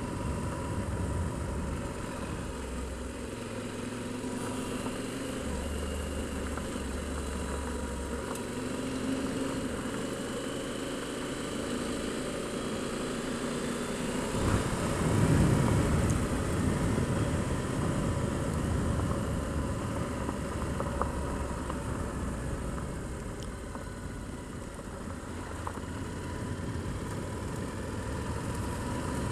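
Motorcycle engine running at low speed on a gravel road, with a steady rush of tyre and wind noise; it gets louder for a couple of seconds about halfway through.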